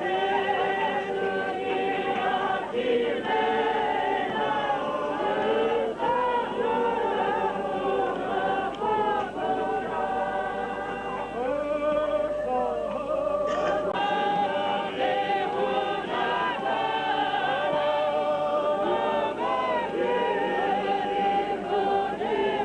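A choir of many voices singing a cappella, a steady unaccompanied hymn.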